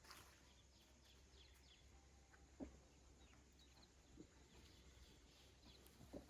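Near silence: faint outdoor field ambience with soft high chirps and a few quiet clicks, about three in all.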